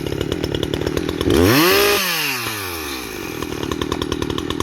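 Echo CS-620PW two-stroke chainsaw idling just after a hot start, blipped once about a second in: the engine revs up quickly and drops straight back to idle.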